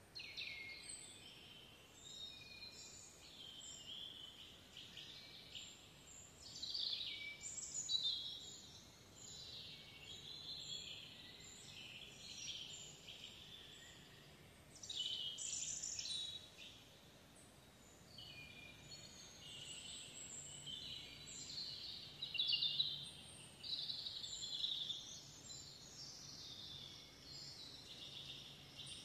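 Songbirds singing outdoors: many short, high, chirping phrases one after another, with several birds overlapping, over a faint steady background.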